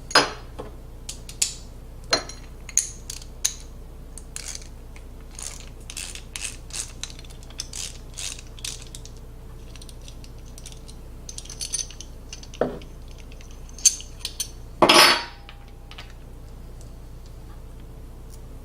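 Small metal hardware being handled and taken out: a run of quick metallic clicks and clinks, then a few scattered knocks and a louder clatter about fifteen seconds in.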